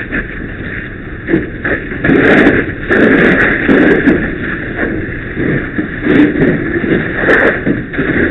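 Fire hose stream flowing onto burning wreckage: a steady hiss of water with irregular louder rushing surges.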